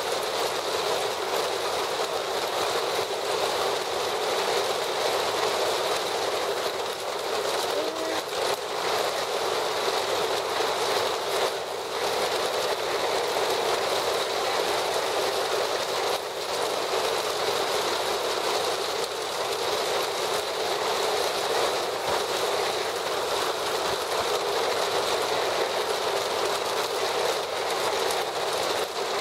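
Heavy thunderstorm rain falling steadily, a continuous even rush with no break.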